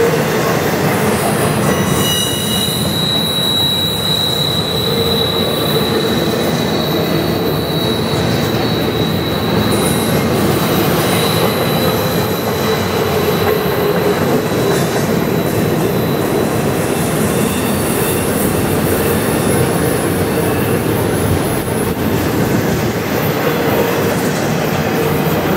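Double-stack intermodal well cars of a freight train rolling past close by, with a steady rumble and rattle of steel wheels on rail. A thin, high wheel squeal comes in about two seconds in and fades out around the middle.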